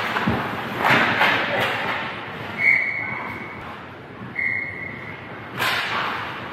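Ice hockey referee's whistle blown twice in the middle, two short steady blasts. Around them are the scrapes and knocks of play on the ice, with a sharp burst near the start and another near the end.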